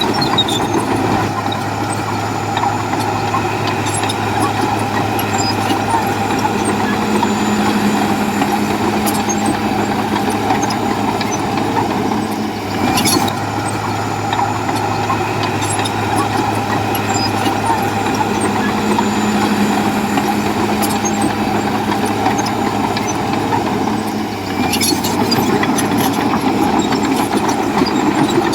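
Komatsu bulldozer's diesel engine running steadily under work, with a brief dip in the sound about 13 seconds in and again near 25 seconds.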